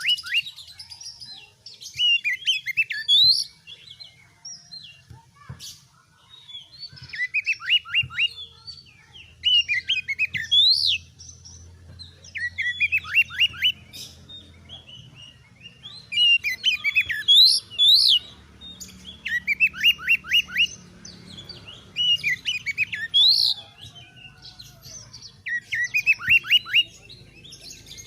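Oriental magpie-robin singing: short bursts of rapid, steeply falling whistled notes, with the occasional rising sweep, repeated every two to three seconds. A faint low hum runs underneath.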